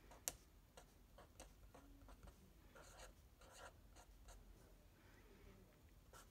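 Faint, quick scratching strokes of a marker pen on paper as letters and small shapes are drawn, with one sharper tick of the pen about a third of a second in.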